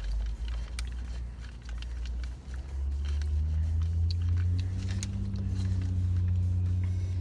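A low, steady hum that grows louder about a third of the way in, with light crunching clicks of peanuts being chewed over it.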